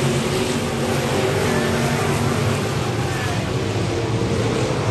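Several race car engines running on the track at once, a steady blend of overlapping engine notes.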